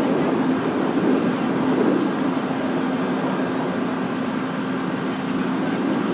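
An engine running steadily at a constant speed, with an even hum that does not change.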